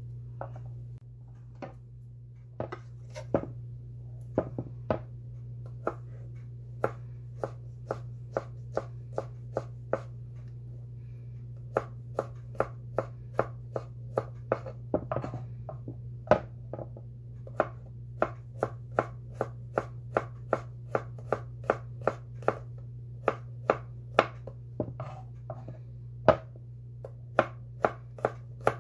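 Kitchen knife slicing garlic cloves on a wooden cutting board: a run of sharp knocks as the blade meets the board, sparse and uneven at first, then steady at about two a second. A steady low hum runs underneath.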